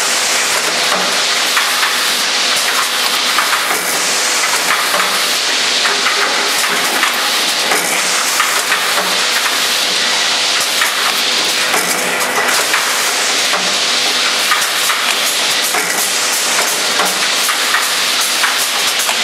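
Makum four-lane shot glass filling machine running: a steady hiss and hum with many rattling clicks, a low thump about once a second, and surges of hiss every couple of seconds.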